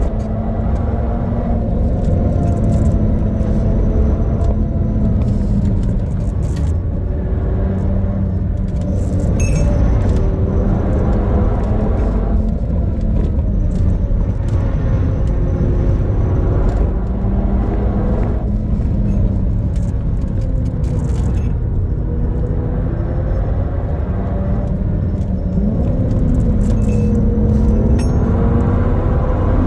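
2013 Audi TT RS's tuned turbocharged five-cylinder engine running hard at high revs, its pitch dipping and rising again several times as the throttle is eased and reapplied, over a heavy road rumble.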